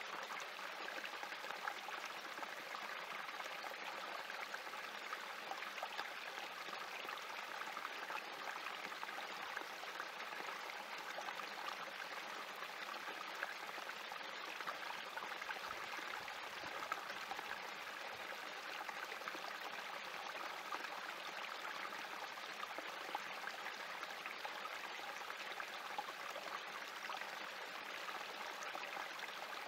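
Small spring creek trickling and splashing down a little cascade between rocks: a steady babble of running water with small splashes scattered through it.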